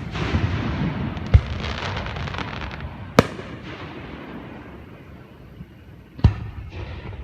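Fireworks display: sharp bangs of exploding shells a little over a second in, about three seconds in and again near the end, with dense crackling over the first few seconds.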